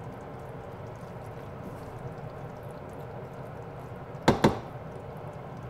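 Pan of ground meat and vegetables simmering with a steady low bubbling hiss while a plastic slotted spatula stirs it. About four and a half seconds in, two quick sharp knocks, the spatula against the pan.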